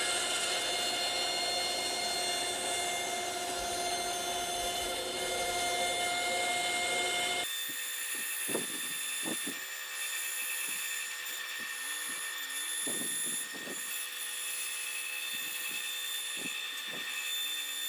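Bandsaw running, its blade cutting a curved line through a sheet of MDF. The running tone holds steady, and about seven and a half seconds in the sound changes abruptly, with short irregular cutting noises after that.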